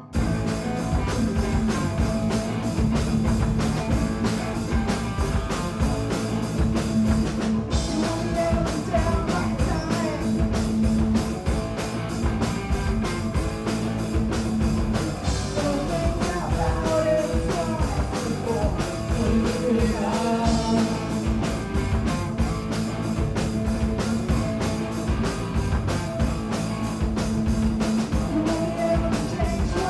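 A punk band playing live: loud distorted electric guitars, bass and drums at a fast driving beat, with a female-fronted vocal singing over it. The full band comes in all at once.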